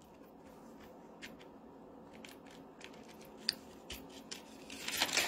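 Soft handling sounds of packaging as metal cutting dies are taken out: scattered light clicks and rustles, with a brief cluster of louder clicks and crinkling near the end.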